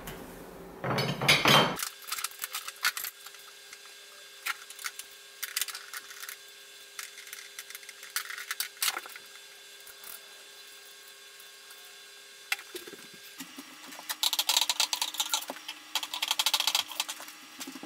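Metal handle tubes of a push reel lawn mower being assembled on a hardwood floor: scattered clicks, knocks and scrapes of tubing and small fittings, with a loud scrape about a second in. Near the end comes a long stretch of rubbing and squeaking as a foam grip is forced onto the handle tube.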